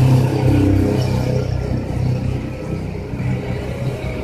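A motor vehicle engine running steadily, a low hum that is loudest in the first second and eases slightly afterwards.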